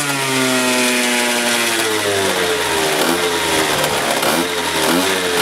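Yamaha Aerox scooter's two-stroke engine, tuned with a Polini Evo 1 kit, a 24 mm Dell'Orto carburettor and a Polini For Race exhaust, running on a dynamometer. The revs fall away from high over about two seconds after a full-throttle run, settle lower, then are blipped briefly a few times.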